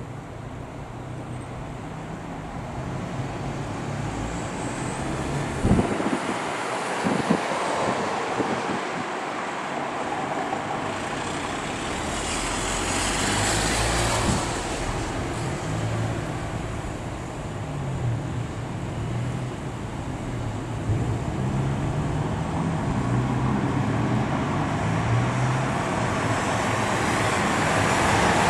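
Outdoor city ambience: a steady rush of road traffic that grows gradually louder, with two sharp knocks about six and seven seconds in.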